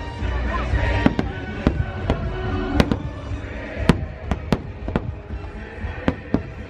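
Fireworks going off in a rapid string of sharp bangs, one or two a second, over a low rumble and loud show music.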